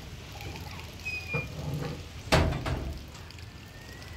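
A single sharp knock a little over two seconds in, with a short ringing after it and a smaller knock shortly before, over the shuffling of goats crowding a metal feed rail in a pen.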